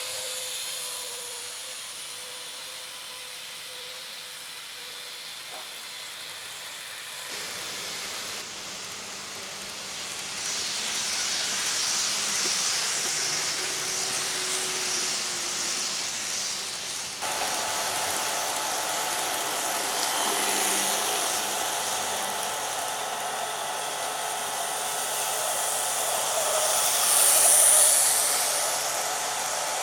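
Model trains running on layout track: a steady whirring hiss of small motors and wheels on rail, with faint steady whines. The sound changes abruptly about seven and seventeen seconds in, and it swells louder near the end.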